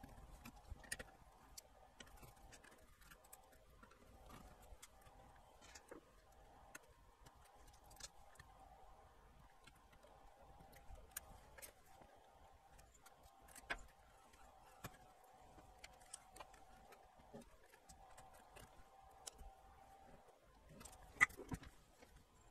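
Near silence with faint, scattered clicks and taps of a circuit board and a screwdriver being handled on a workbench, a few sharper clicks about two-thirds of the way in and near the end, over a faint steady tone.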